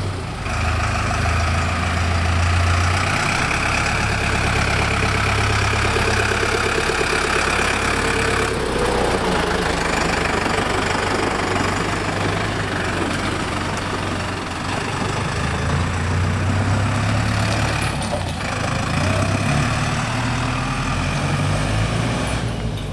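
Farm tractor's diesel engine running as it pulls a loaded-down tipping trailer away and drives past, with a steady low drone that shifts in pitch a few times as it moves off.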